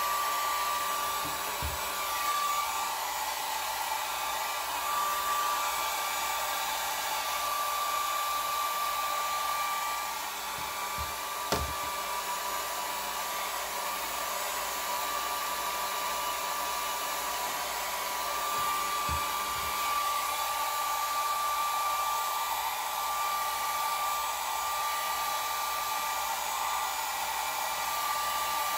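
Small handheld hair dryer running steadily: a rush of air with a thin steady whine on top, and one brief click about halfway through.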